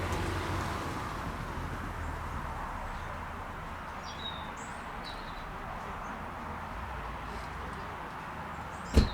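Steady jet engine noise from an Airbus A319CJ, slowly fading, with a few short bird chirps partway through and one sharp knock near the end.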